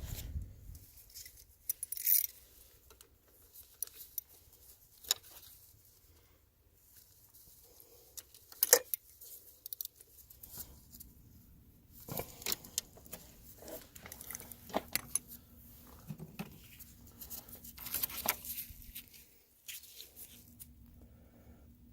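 Scattered clicks, taps and short metallic rattles, as of small hard objects being handled.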